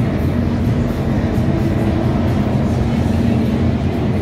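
Powerboat engines running with a steady low rumble.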